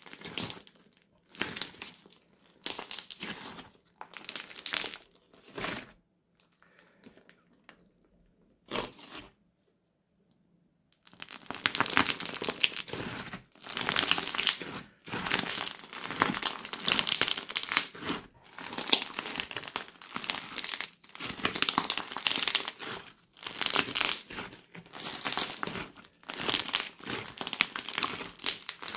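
Crunchy slime packed with foam beads being squeezed and kneaded by hand, giving a wet crackling and popping. A few separate squeezes come first with short pauses between them, then the crackling runs on almost without a break from about eleven seconds in.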